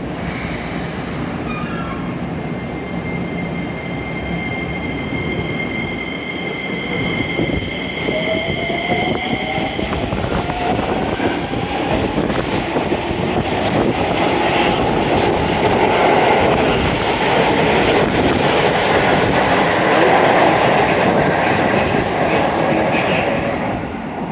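Keisei 3000-series electric train pulling out of an underground station, its motor whine rising in pitch as it accelerates. Several steady high tones sound for the first ten seconds or so, and the running noise of the cars grows louder through the second half.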